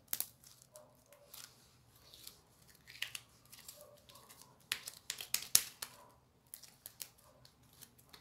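Slime being squeezed, stretched and pressed by hands on a tabletop: irregular sticky clicks and pops, the loudest about five and a half seconds in.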